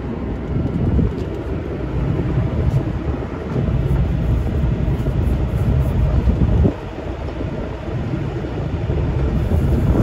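Steady low rumble on board a sailing yacht motoring slowly through the marina, with wind buffeting the microphone. It drops suddenly about two-thirds of the way through.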